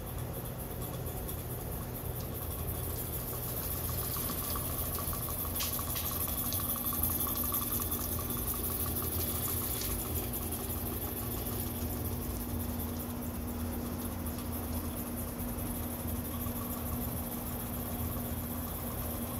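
Miniature live steam beam-engine locomotive running on garden railway track: a steady hiss and hum over a low rumble, swelling as it passes close, with a few light clicks near the middle.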